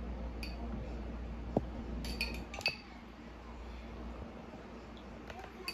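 A few light, sharp clinks and taps of a metal spoon against kitchen containers while ricotta is spooned out of its tub.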